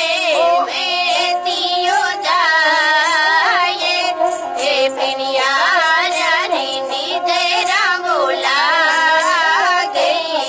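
Indian folk music: a wavering, heavily ornamented melody with a strong vibrato, held over a steady drone.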